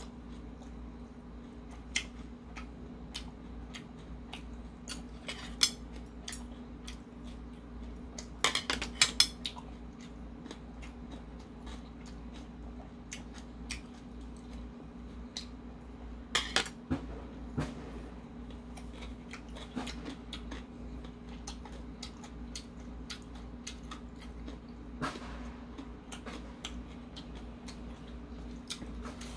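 Metal chopsticks and tableware clicking against plates and bowls during a meal: scattered sharp clicks, with a couple of brief flurries of clicking, over a steady low hum.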